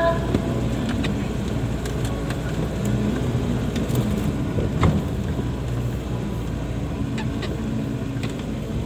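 Car engine running as the vehicle drives over a rough, rutted dirt track, heard from inside the cabin, with scattered knocks and rattles from bumps; the sharpest knock comes about five seconds in.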